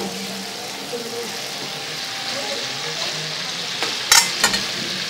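Food frying in a pan of hot oil, a steady sizzle, stirred with a metal skimmer. A few sharp clicks come near the end as the skimmer knocks against the pan.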